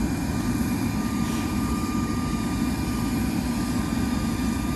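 Bombardier Global Express 6000 business jet taxiing, its Rolls-Royce BR710 turbofans running with a steady high whine over a low rumble.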